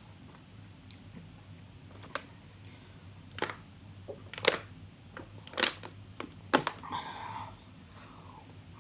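A plastic water bottle crackling and clicking as it is handled and drunk from: several sharp clicks a second or so apart, the loudest between about three and seven seconds in.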